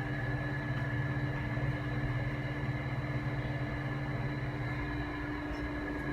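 Air conditioner of an enclosed Ferris wheel gondola, running with a steady hum and a few constant whining tones, heard from inside the cabin.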